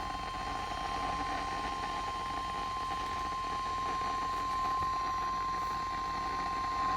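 NOAA Weather Radio's 1050 Hz warning alarm tone: a single steady tone held without a break over radio hiss, the signal that announces a warning, here a severe thunderstorm warning.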